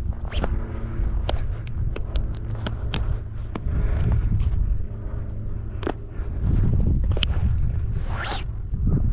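Parachute gear being handled: nylon risers and suspension lines rustling and scraping, with many sharp clicks of the hardware, over a steady wind rumble on the microphone.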